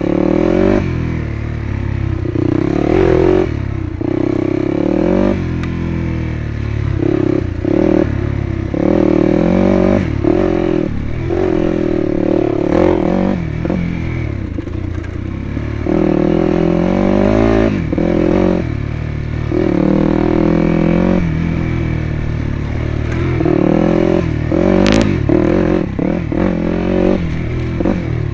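Dirt bike engine running hard along a trail, revving up and falling back again and again as the rider works the throttle and gears. A single sharp click near the end.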